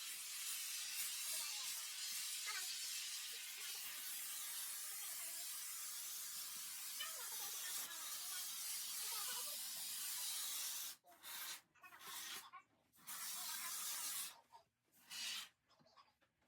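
Steady hiss of a spray nozzle, running unbroken for about eleven seconds, then let off in several short spurts with pauses between them.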